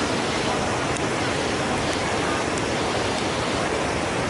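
Steady rush of water pouring over a waterfall.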